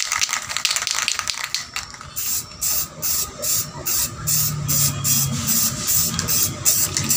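Aerosol spray-paint can spraying paint onto a metal radio cover. After a stretch of hiss it goes in short hissing bursts, about two or three a second, laying on thin coats.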